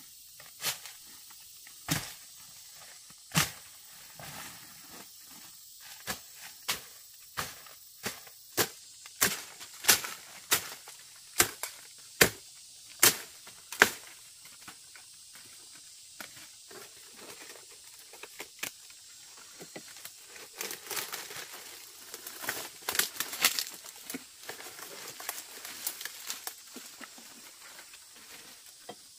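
A run of sharp snaps of stems and brush, about one a second, that stops about halfway. Later comes a spell of dry crackling and rustling as a person climbs a palm trunk clad in dry fronds and fibre.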